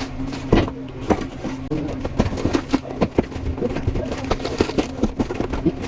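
Irregular knocks and scrapes of tools at work on a concrete floor, many short hits in quick succession, over a steady low hum.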